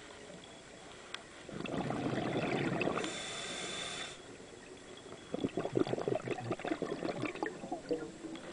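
Scuba diver's regulator breathing, heard underwater: a burst of bubbling exhaust, a short hissing inhale, then a second stream of bubbles.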